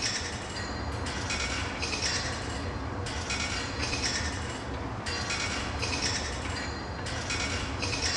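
Clinking sounds that come back about every couple of seconds, over a steady low rumble.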